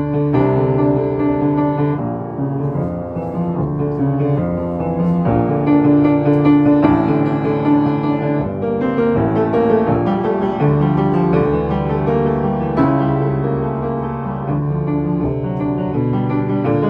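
Solo piano playing full sustained chords with a melody above them. The harmony changes about every second or so.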